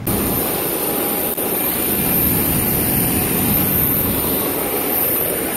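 Jet aircraft turbine noise on the apron: a steady high-pitched whine over a loud, broad rumble.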